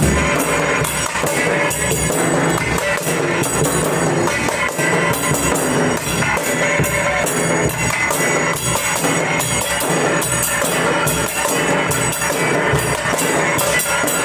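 Dhol drums played in a fast, steady rhythm, dense loud strokes without a break.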